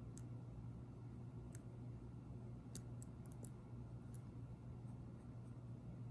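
Faint, sharp metallic clicks of a lock pick and tension wrench working the pin tumblers of a Master Lock No. 1 laminated padlock, irregular and loosely grouped, with a quick cluster about halfway through.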